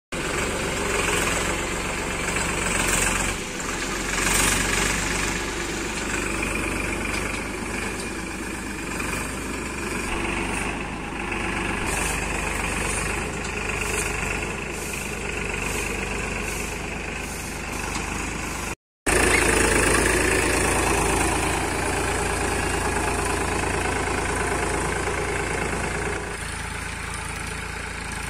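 Diesel engine of a Powertrac (Escorts) tractor running steadily as it drives with a mounted disc plough. The sound cuts out briefly about two-thirds of the way through, then the engine carries on.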